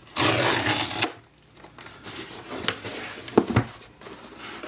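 Cardboard shipping box's perforated tear strip ripped open, a rough tearing rasp lasting about a second. Then the cardboard is handled and turned over, with a couple of light knocks about three and a half seconds in.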